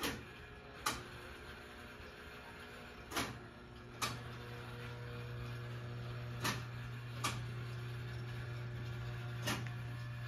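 Lionel Illinois Central passenger train running on three-rail tubular track: a steady low hum that grows louder a few seconds in, with sharp wheel clicks over the rail joints every few seconds, mostly in pairs about a second apart.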